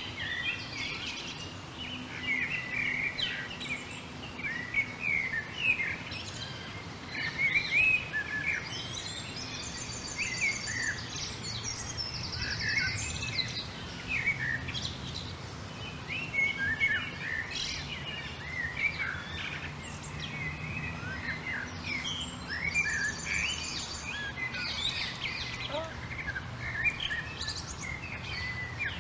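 Many small songbirds chirping and calling over one another in short, quick notes. Twice, a fast high trill rings out, over a faint steady low hum.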